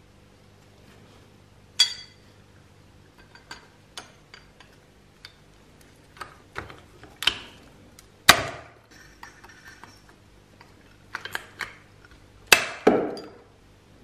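Hand rivet tool setting rivets in a sheet-metal part: a string of separate sharp metallic clicks and clinks, the loudest snaps a little past the middle and near the end.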